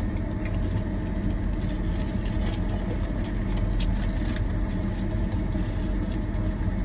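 Steady low hum of a parked car's engine idling, heard inside the cabin, with a few short crunches of potato chips being chewed.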